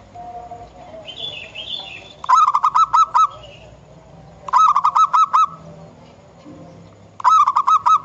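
Zebra dove cooing: three quick bursts of rapid, staccato rolling notes, about six to a burst, each burst lasting about a second.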